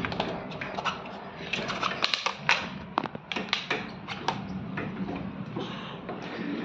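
Irregular light clicks and taps as a sliding glass window and its frame are handled and wiped, thickest in the middle of the stretch.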